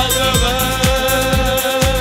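Tamil Christian worship song with a band: a man's voice holds one long sung note over a steady drum beat.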